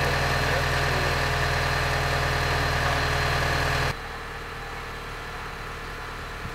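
Mobile crane's diesel engine running steadily while it holds a steam locomotive up in its slings, a low, even drone. About four seconds in it drops abruptly to a fainter, more distant engine hum.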